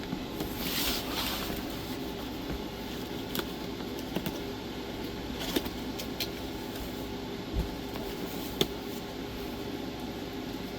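A cardboard box being opened by hand. There is a rustling, scraping stretch about a second in, then scattered clicks and knocks of packaging being handled, over a steady low hum.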